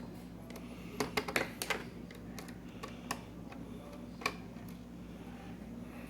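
Small screwdriver and screws clicking and tapping against a laptop's plastic screen housing: a quick run of sharp clicks about a second in, then a couple of single clicks, over a steady low hum.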